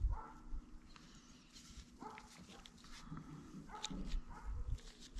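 Several short, faint animal calls at irregular intervals, with a low thump at the very start.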